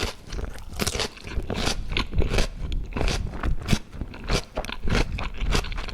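Close-up crunching of stir-fried lotus root slices being bitten and chewed, crisp crunches coming a few times a second.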